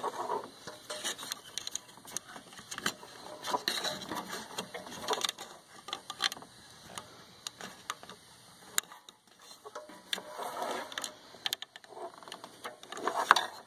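Irregular small clicks, taps and rustling as a hand pushes the exhaust gas temperature sensor wire into plastic retaining clips among the engine-bay hoses.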